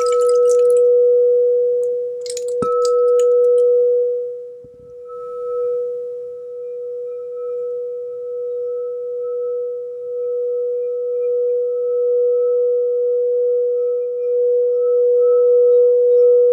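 Frosted quartz crystal singing bowl struck twice with a mallet, near the start and about two and a half seconds in, then ringing on as one steady tone that swells and fades. A brief rattle of a rain stick comes with the second strike.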